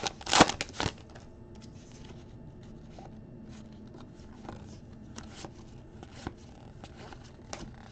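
A trading card pack wrapper crinkling and tearing open in a few loud bursts during the first second, then faint clicks and slides of cards being flicked one by one through the hands.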